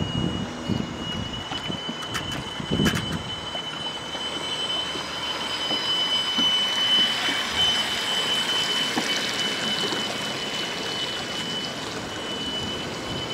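The small electric drive motor of a radio-controlled model crab scrape boat whines at one steady high pitch as the boat runs across the water. A hiss swells around the middle as it passes close, and wind rumbles on the microphone with a couple of clicks near the start.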